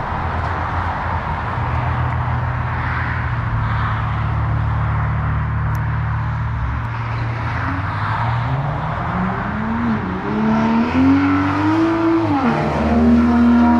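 2020 Toyota Supra with a Boost Logic titanium non-valved cat-back exhaust: a steady low exhaust drone, then from about two-thirds of the way in the note climbs as the engine revs up, dips once, climbs again, and settles into a higher steady note near the end.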